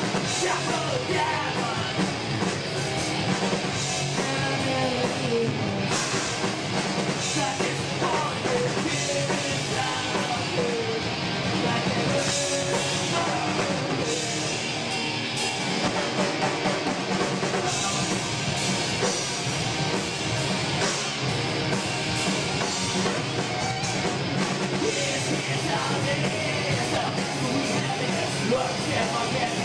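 A rock band playing live: electric guitars, bass and a drum kit, with a sung vocal line over them.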